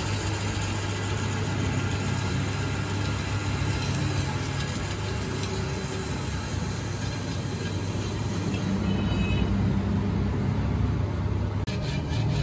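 Metal lathe running steadily with an alloy wheel spinning in it, a low motor hum under the hiss of sandpaper held against the turning rim lip. Near the end it gives way to quick back-and-forth strokes of sandpaper rubbed by hand on the rim.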